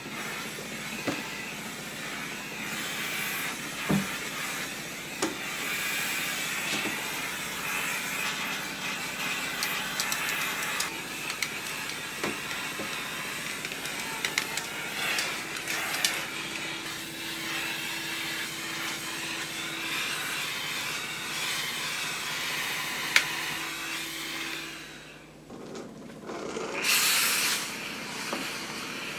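Conair GS88K standing garment steamer running, giving a steady hiss of steam with scattered small clicks, and a louder burst of steam near the end.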